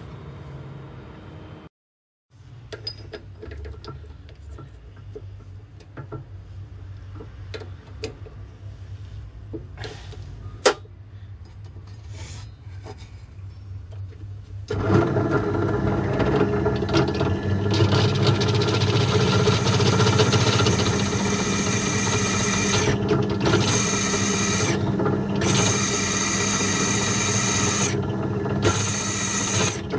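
Drill press running, its freshly sharpened twist bit drilling into a thin steel plate. There is a steady motor hum with a high cutting whine over it that breaks off briefly a few times. Before that, about halfway in, there is only a quieter low hum with scattered light clicks.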